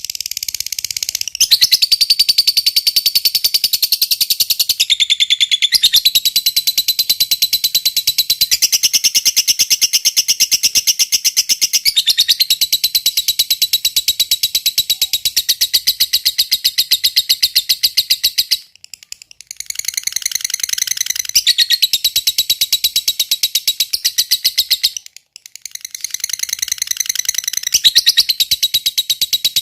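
Fighter lovebird chattering in a long, rapid, shrill trill, the 'ngekek panjang' song prized by keepers. One unbroken bout lasts about eighteen seconds, then the bird pauses briefly twice and starts again each time.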